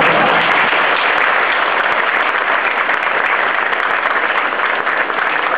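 A roomful of people applauding: dense, steady clapping of many hands.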